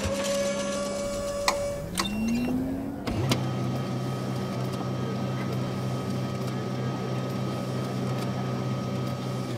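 Record-player mechanism starting up: a steady motor tone with a couple of clicks, then a whirr rising in pitch about two seconds in, a clunk at about three seconds, and a steady low motor hum after it.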